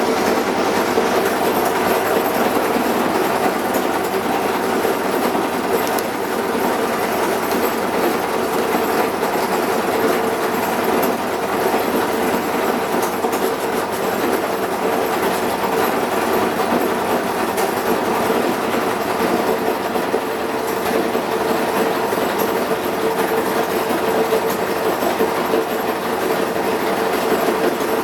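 Washing machine running with a loud, steady mechanical noise that holds evenly throughout.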